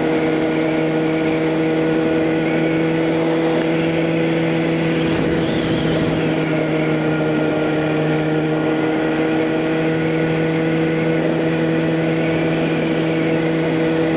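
A 2009 Kawasaki ZX6R's inline-four running at a steady engine speed through a Hot Bodies Growler slip-on exhaust as the bike cruises, over a steady rush of wind noise.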